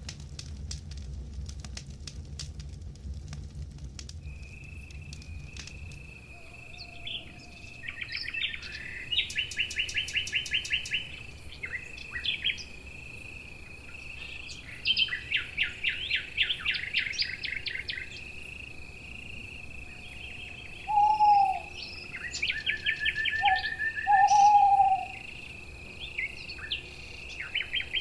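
Outdoor nature ambience: a steady, high insect drone with birds calling in rapid trills every few seconds, and a few lower, louder calls about three quarters of the way through. Campfire crackling and a low rumble fade out within the first six seconds.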